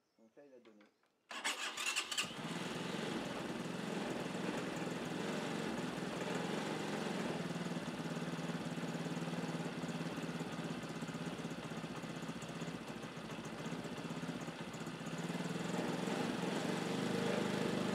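Air-cooled motorcycle engine, fitted to a tractor, starting: it catches suddenly about a second in, stumbling unevenly for a moment, then settles into a steady run.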